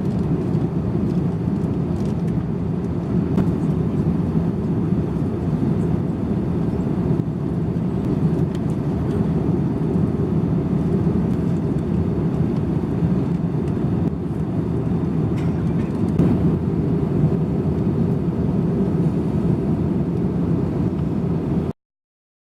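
Steady low roar inside a jet airliner's cabin, engine and airflow noise, unchanging until it cuts off to silence near the end.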